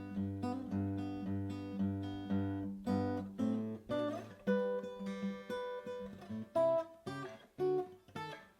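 A 1954 Martin 000-18 acoustic guitar with mahogany back and sides, played solo by hand. It opens with a steady, repeating picked bass pattern under the melody for about three seconds, then moves to separate melody notes and chords with short pauses between phrases.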